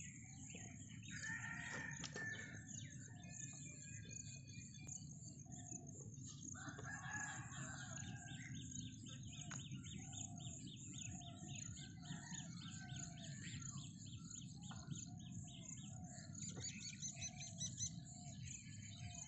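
A rooster crowing twice, about a second in and again around seven seconds, each crow lasting a second or so. Other birds call throughout, with a long run of short repeated notes and high chirping, over a steady low background noise.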